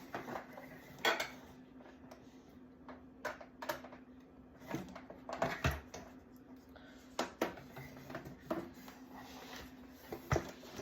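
Scattered clicks and knocks of hard plastic parts being handled and set down, with a faint steady hum underneath.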